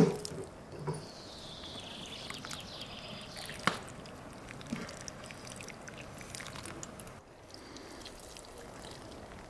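Water sprinkling from a plastic watering can's rose onto potted geraniums' leaves and soil, a light steady patter, with a sharp tap a little under four seconds in.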